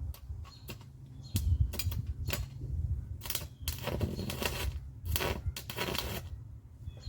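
Stick welding arc on an aluminum rod striking and sputtering: scattered sharp crackles, then two longer crackling spells of about a second each around the middle, over a steady low hum. The arc won't hold, a sign of too little amperage as the welder judges it.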